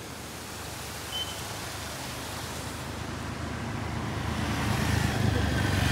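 Motor scooters approaching, their engines growing steadily louder toward the end over a constant background hiss.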